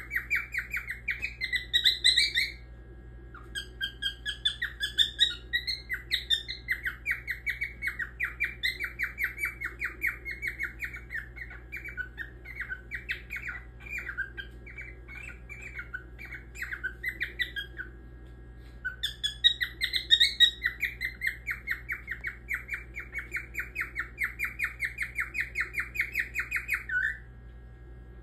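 Grey cockatiel singing: long runs of quick, repeated chirps, several a second, with some rising whistled notes, broken by two short pauses.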